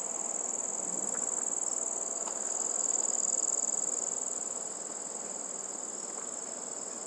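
A wooden spatula stirring thick, glossy wheat halwa in a steel pan, with soft scraping sounds that swell about three seconds in. Over it runs a steady high-pitched trill, like a cricket's.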